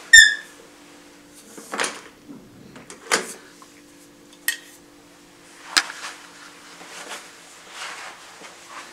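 Bathroom door pulled shut with a loud metallic clack that rings briefly, followed by several sharper clicks and knocks and some softer handling noise, over a faint steady low hum.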